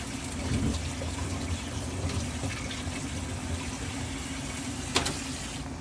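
A covered pot of napa cabbage and chicken soup bubbling at the boil, over a steady low hum, with one sharp click about five seconds in.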